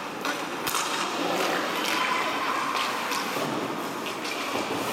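Ice hockey play: skate blades scraping the ice, with several sharp clacks of sticks and puck spread through.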